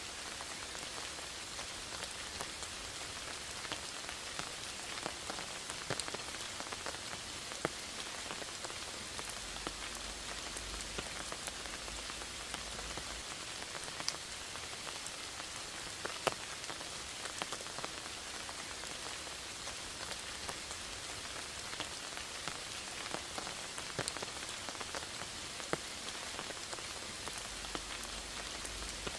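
Steady rain falling in a forest, an even hiss with frequent individual drops clicking and tapping on nearby surfaces.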